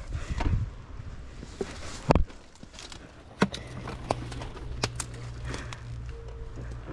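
Sur-Ron Light Bee X electric dirt bike moving slowly over a rough forest trail. A low rumble is broken by scattered clicks and knocks and a heavy thud about two seconds in, and a steady low hum sets in about halfway through as the bike rolls off.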